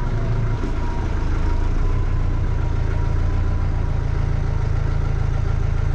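Massey Ferguson tractor's diesel engine running steadily at low revs while the tractor moves slowly across gravel.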